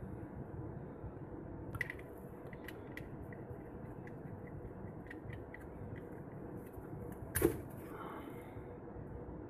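Small metal clicks and ticks of an Asvape AIM-9 RDA atomizer being twisted apart by hand, with one sharper click about three-quarters of the way through as its parts come apart. A steady low hiss lies under it.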